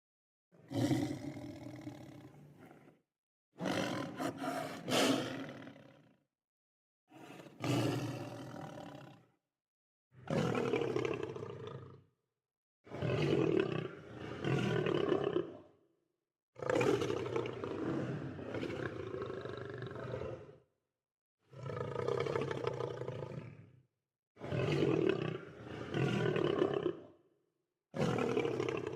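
Lion roaring in a string of about nine separate calls, each lasting two to four seconds, with dead silence between them.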